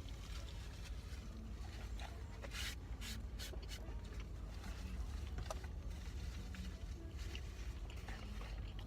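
Steady low hum of a car interior, with scattered soft crackles and clicks of food and packaging being handled and eaten.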